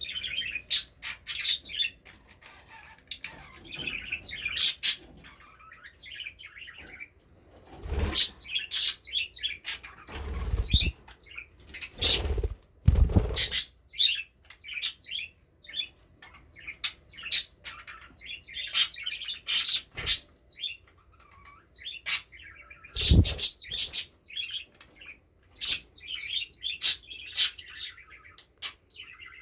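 A flock of budgerigars chirping and chattering in many short, high calls, broken by several loud bursts of wing flapping.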